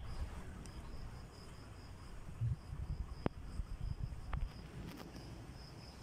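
An insect calling in a rapid, even, high-pitched pulsing, with low rumbling and a few sharp clicks underneath.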